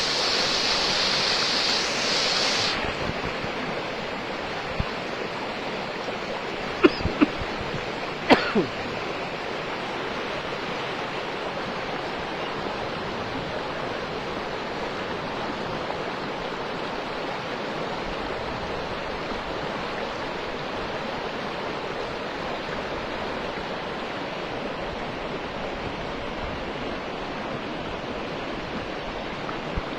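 Floodwater rushing: a steady, even rush of fast-flowing water. It is brighter and hissier for the first three seconds, and there are a few sharp knocks about seven and eight seconds in.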